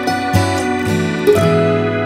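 Background music played on a plucked string instrument, with new notes struck about a third of a second in and again just after a second, each ringing on.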